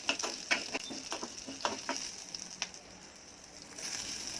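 Small onions, curry leaves and whole spices sizzling in sesame oil in a kadai, with a spoon stirring and tapping against the pan in short sharp clicks. The stirring pauses and the sizzle drops briefly about three seconds in, then picks up again.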